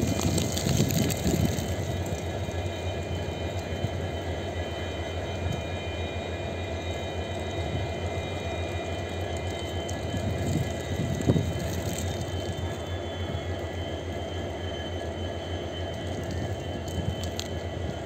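Freight train of open-top wagons rolling past close by: a steady rumble and rattle of wheels on rail, with a couple of louder knocks near the start and about eleven seconds in, and faint high steady squealing tones above.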